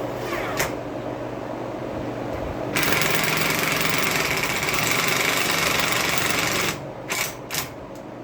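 Power drill running steadily for about four seconds, driving a fastener into a mounting brace, then two short trigger bursts near the end.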